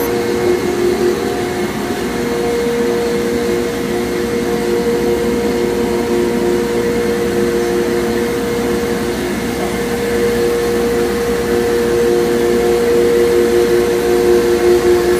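RIGpro CNC router running steadily while machining a shaker cabinet door, its spindle giving two steady tones over a broad rushing noise, a little louder near the end.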